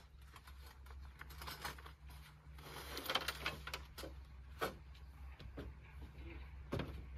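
Faint rustling and clatter of camping gear being handled in the open boot of a 4x4, with a couple of sharper knocks.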